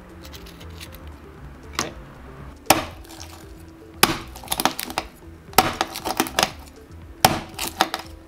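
A kitchen knife blade being smacked down onto a whole red sea urchin's shell on a wooden cutting board to crack it open: sharp knocks, a single one about two seconds in, then coming in quick clusters.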